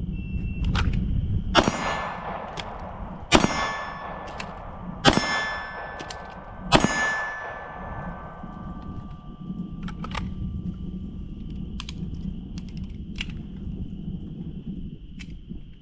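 Four pistol shots about 1.7 seconds apart, each followed by the ringing of a struck steel target. A few fainter ticks come later, over a steady high insect drone.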